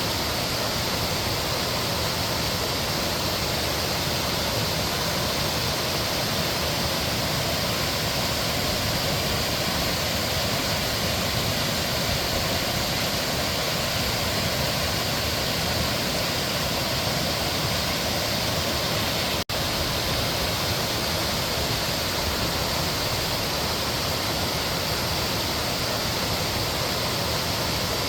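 Mountain stream water rushing steadily over rocks, an even, unbroken flow. The sound cuts out for an instant about two-thirds of the way through, then carries on unchanged.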